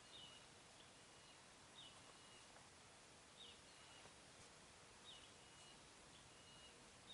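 Faint bird call repeated about every one and a half seconds: a short falling note running into a held high whistle, over a faint forest hiss.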